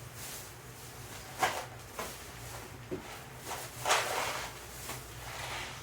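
A few knocks and rustles of small workshop items being handled on a bench. There is a sharp knock about a second and a half in, and the loudest, longer rustle about four seconds in.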